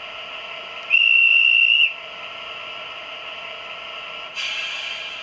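An ESU sound decoder in a model DB class 218 diesel locomotive plays the engine idling steadily. About a second in there is a single shrill whistle blast lasting about a second, and near the end a sudden burst of air hiss.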